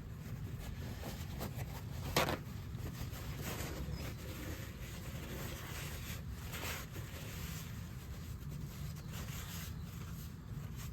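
Faint steady low background noise with scattered small clicks and taps; one sharper click about two seconds in.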